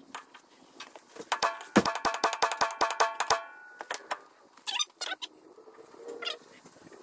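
Hammer blows on steel, a quick run of ringing metallic strikes about five a second for some two seconds, with scattered knocks and clinks around it. They come from a bearing race being driven into a truck's front wheel hub.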